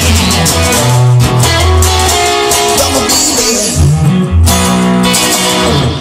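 Music: a recorded song with guitar playing over a bass line and a steady beat.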